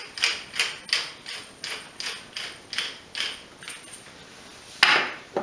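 Hand-twisted pepper mill grinding pepper into a mixing bowl, a steady series of grinding strokes about three a second that stops about four seconds in; a single louder knock follows near the end.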